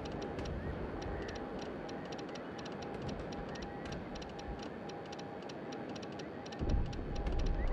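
Morse code tapped out on a telegraph instrument: a fast, uneven run of sharp clicks. About a second before the end, a louder low rumble comes in.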